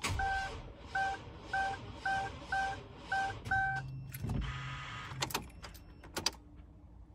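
A run of seven short electronic warning beeps, evenly spaced about half a second apart. They are followed by about a second of low buzzing and then a couple of sharp clicks.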